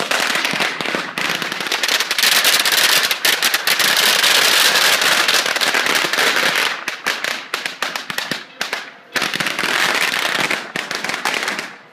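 A long string of Chinese firecrackers going off in a dense, rapid crackle. It drops away briefly about nine seconds in, then picks up again and stops near the end.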